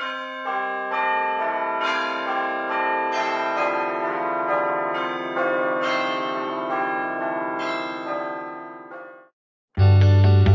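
Bells rung one after another, a new note about every half second, each ringing on and overlapping the others, fading away near the end. After a brief silence, a much louder music track cuts in just before the end.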